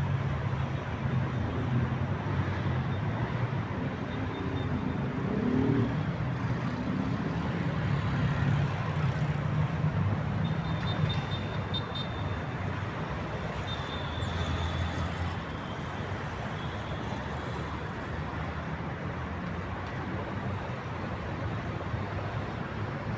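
Steady rumble of city road traffic, with a low engine drone from passing vehicles and faint high-pitched squeaks about halfway through.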